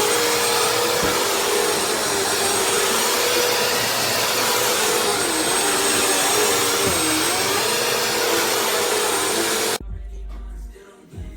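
Bissell CleanView Swivel Rewind Pet upright vacuum cleaner running steadily, its motor whine dipping briefly in pitch twice, about five and seven seconds in. The vacuum sound cuts off abruptly near the end.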